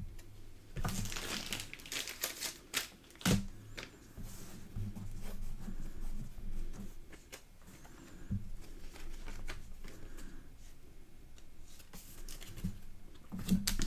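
A trading card being slid into a plastic sleeve and handled: rustling and crinkling of thin plastic with a few sharp clicks, the loudest about three seconds in.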